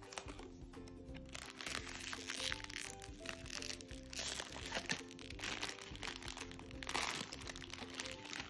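Plastic blind-box wrapper crinkling in repeated handfuls as it is pulled from its cardboard box and opened, over light background music.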